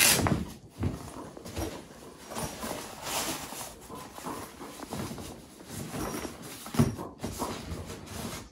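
Rustling and crumpling of a packed luggage duffel bag as gear is stuffed into it and pressed down by hand, with irregular bumps. The loudest bumps come at the start and about seven seconds in.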